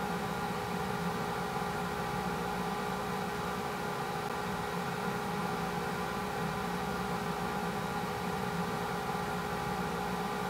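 Steady drone of several held tones over a hiss.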